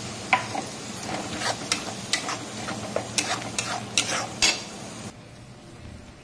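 Metal spatula scraping and clinking against a metal kadhai while stirring freshly added masala paste into onions and tomatoes frying in oil, over a steady sizzle. The clinks stop about five seconds in, leaving a fainter sizzle.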